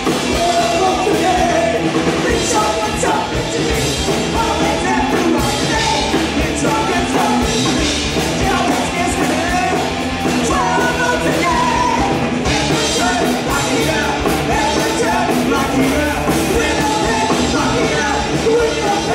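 Live punk rock song: electric guitar, bass guitar and drums, with a man and a woman singing and yelling together into one microphone.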